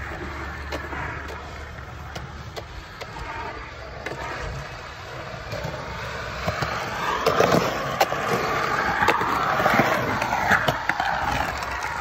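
Skateboard wheels rolling on a rough concrete skate bowl. The rolling grows louder from a little past halfway, with scattered sharp clicks.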